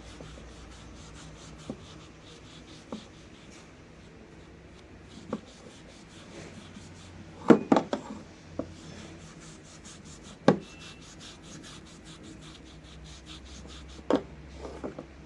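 Quick back-and-forth abrasive strokes by hand, about four a second, as in sanding or filing a knife, broken by a few sharp knocks of the piece against a hard surface; the loudest knocks come about halfway through.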